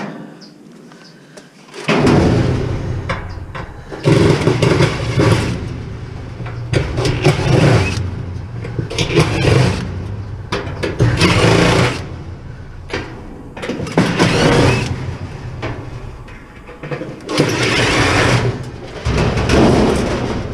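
Power drill running in repeated loud surges over a steady motor hum as it backs out screws on a dishwasher being scrapped; it starts about two seconds in.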